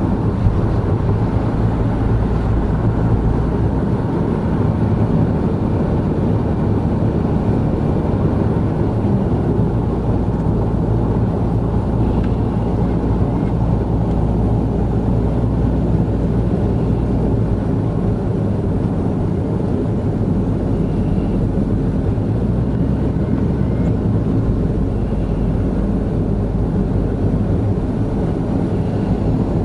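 Steady in-cabin drone of a 2017 Honda N-BOX Custom kei car cruising at expressway speed: its 660 cc turbocharged three-cylinder engine and its tyres on a damp road, a low, even rumble with no changes.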